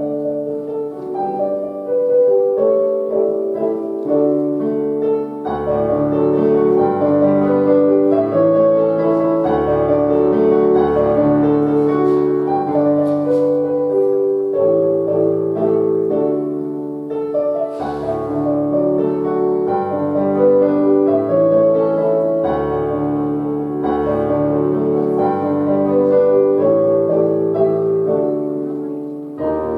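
Piano playing slow, sustained chords; a low bass line comes in about five seconds in and drops out and returns several times.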